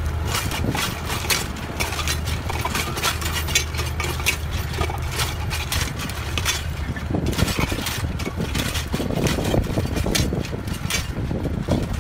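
Compact tractor engine running at idle revs in second road gear while pulling a disc-type inter-row hoe through vineyard soil, with many short clicks and crackles over it. The steady low engine hum grows fainter about halfway through.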